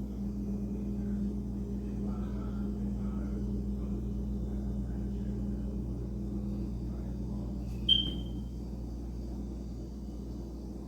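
Steady low hum of a running refrigerator, with one short high-pitched ping about eight seconds in.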